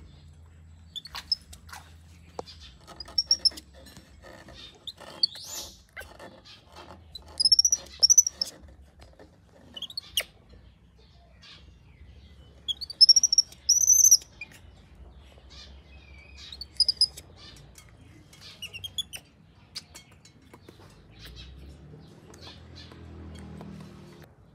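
Baby monkey screaming in short, high-pitched squeals that rise and fall, coming in clusters of two or three several times, the loudest about halfway through. Scattered light clicks are heard between them.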